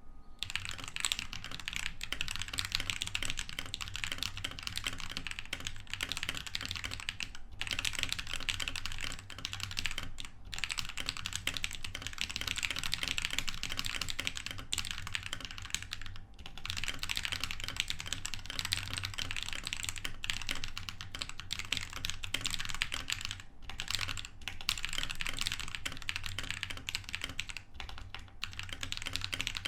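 Continuous fast typing on a Tecware Phantom 87 mechanical keyboard with lubed Akko CS Lavender Purple switches and Havit PBT Pudding keycaps, with a few short pauses between bursts.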